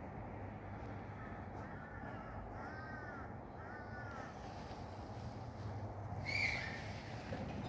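A bird calling outdoors: three short arched calls in quick succession, then a single louder call about six seconds in, over steady background noise.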